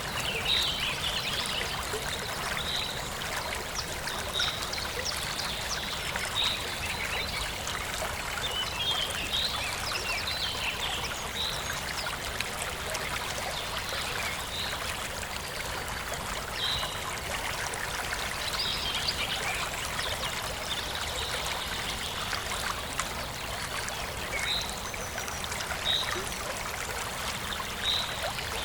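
Forest stream running and trickling steadily, with a bird repeating a short high chirp every couple of seconds and a few quicker runs of chirps.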